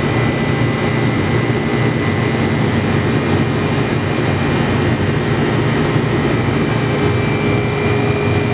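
Steady, loud noise of a ventilation fan, with a faint steady whine over it.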